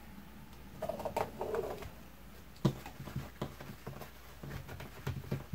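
A pen marks lines on fabric against a clear acrylic quilting ruler, making light taps, clicks and scratches. About a second in there are a few short, low, pitched calls.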